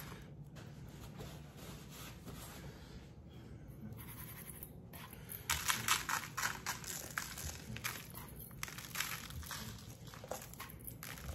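Dry spice rub sprinkled by hand onto racks of raw baby back ribs on butcher paper. There are faint rustles of hands on the meat and paper at first, then from about five and a half seconds in a run of short rustling sounds as the rub falls.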